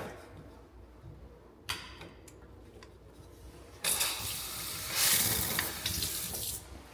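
Kitchen sink faucet turned on, water running into the sink for about three seconds, heavier toward the end, then shut off.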